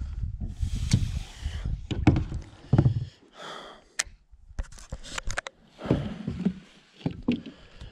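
Handling noise from a fishing rod and baitcasting reel: scattered sharp clicks and knocks with rustling. A low wind rumble on the microphone dominates the first few seconds.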